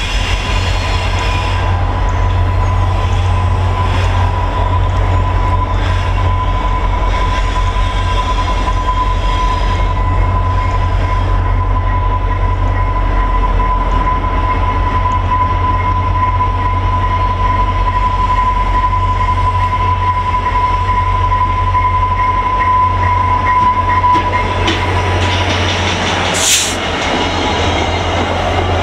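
VIA Rail F40PH-2 diesel locomotives bringing a passenger train in to a station stop: a heavy, steady low engine rumble with a single steady high-pitched squeal that fades out after about 25 seconds as the train slows. A short, sharp hissing noise comes near the end as the coaches roll past.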